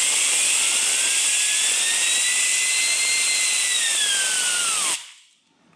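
Compressed-air blow gun hissing as it drives a 3D-printed PLA turbine wheel, whose whine rises steadily in pitch as the wheel spins up. About five seconds in the air cuts off and the whine drops away quickly as the steel shaft binds on the plastic.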